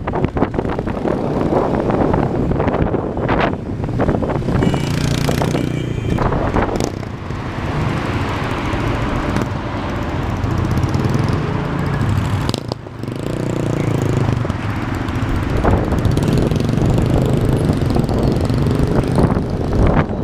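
Motorcycle engines running during a group ride, their pitch rising and falling with the throttle, with wind rushing over the microphone.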